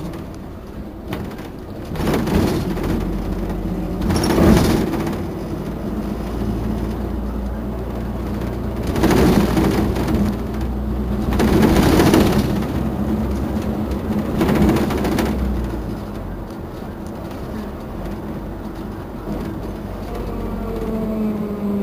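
Otokar Navigo T midibus's diesel engine idling at a stop, a steady low hum, with several loud rushing surges of noise over it. Near the end an engine tone shifts in pitch.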